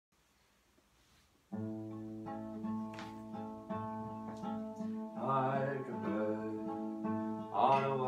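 Acoustic guitars start a slow chordal intro about a second and a half in, after near silence, with the chords ringing on steadily. A wavering melody line rises over the chords about five seconds in and again near the end.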